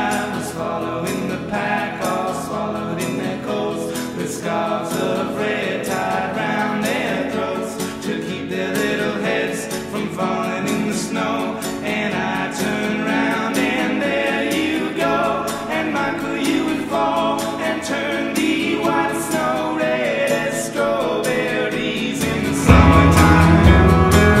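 Background music with sung vocals. Near the end a heavy bass beat comes in and the music gets louder.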